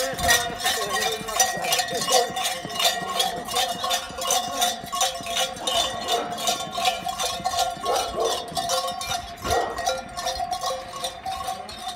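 Large metal cowbells (chocalhos) worn by a masked Chocalheiro, clanking in a fast, steady rhythm of several strikes a second as he walks. They fade toward the end as he moves away.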